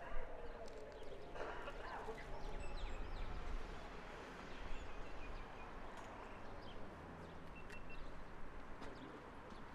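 An Israeli civil-defense siren winding down, its falling tone dying away in the first moment. After it comes quiet outdoor ambience with faint bird chirps and scattered small clicks.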